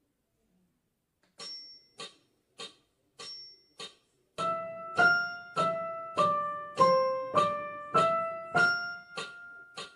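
Digital piano playing a waltz melody in the treble, one note to each beat, with the two hands an octave apart. The piano comes in about four seconds in, after a few soft, evenly spaced ticks on the same beat.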